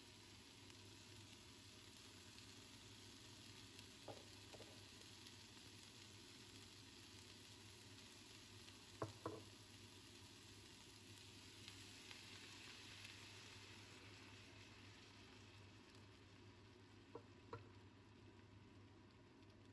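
Mixed vegetables frying in a nonstick pan: a faint, steady sizzle, with a few short clicks, the loudest a quick pair about halfway through.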